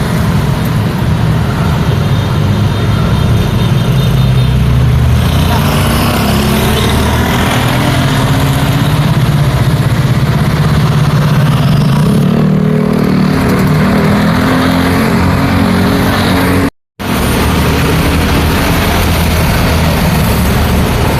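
Busy road traffic: car, motorcycle and truck engines running and tyres passing in a steady mass. Midway through, one engine's pitch rises as the vehicle accelerates. The sound drops out completely for a split second near the end.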